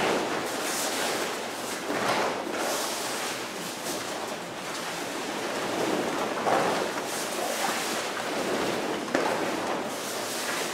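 Swish and rustle of many taekwondo uniforms, with bare feet shuffling and landing on foam mats, as a group moves through a poomsae in unison. A few louder swishes come as the group blocks and kicks together.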